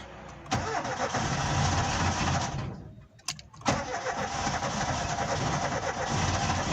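Corsa Lite 1.4 petrol four-cylinder cranking on the starter with the accelerator held down for about two seconds, breaking off briefly, then cranking again and running on. The engine will only start with the gas pedal pressed.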